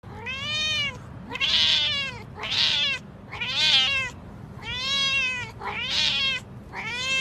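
Domestic cat meowing loudly and repeatedly, about seven long drawn-out meows roughly one a second, each rising then falling in pitch.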